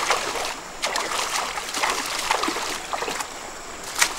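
Shallow river water splashing and sloshing as hands scoop and grab in it, over the steady run of the stream, with a sharper splash near the end.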